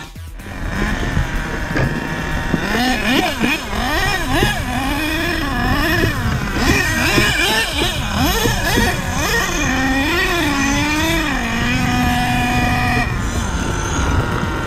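Radio-controlled cars' motors whining, the pitch rising and falling again and again as they speed up and slow down, with more than one car at times. Near the end one pitch holds steady for about a second before dropping off.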